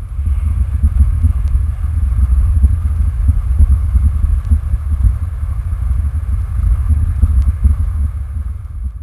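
Low, uneven rumble of noise on the microphone, with no voice or music, cutting off abruptly at the very end.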